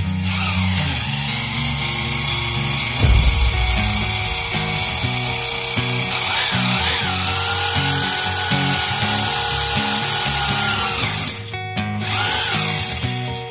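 Bosch rotary hammer with a keyed chuck drilling through a cast epoxy resin knife handle. The motor whine rises and holds steady, stops briefly about eleven and a half seconds in, then spins up again, all under background music.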